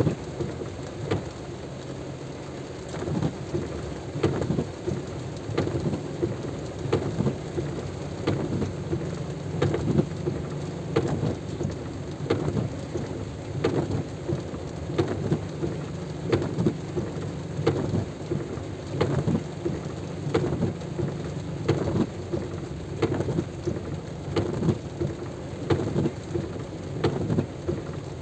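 Heavy rain, with drops striking close to the microphone as frequent sharp taps over a steady hiss, and a low steady rumble underneath.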